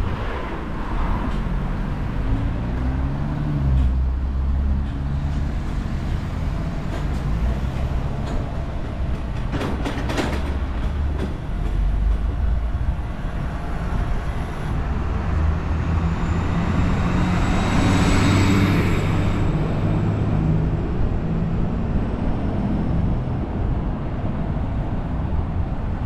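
Motor vehicles passing on a city street, a steady low rumble of engines and tyres. The loudest goes by close about eighteen seconds in, with a thin high whine.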